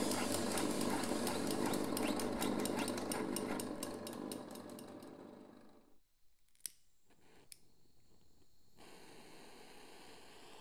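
A rapid mechanical clicking, many clicks a second, that fades away about five seconds in; then two single sharp clicks and a faint hiss.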